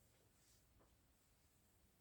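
Near silence: faint room hiss, with two faint short sounds about half a second and just under a second in.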